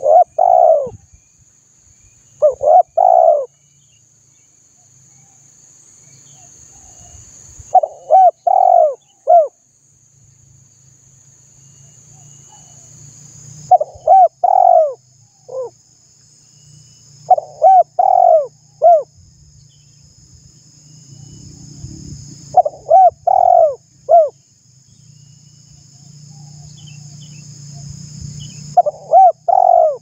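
Spotted dove cooing: short phrases of three or four hooting notes, repeated about every five seconds, over a steady high-pitched insect buzz.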